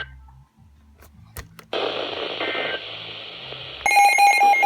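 Weather radio: after a brief near-silent gap with a few clicks, a hissing radio signal comes in. Near the end a loud electronic alert tone starts, beeping rapidly, several times a second, as the radio goes off for an incoming warning.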